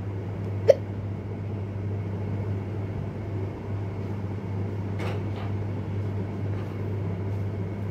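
Steady low background hum, with one short, sharp sound a little under a second in and a few faint small clicks around the middle.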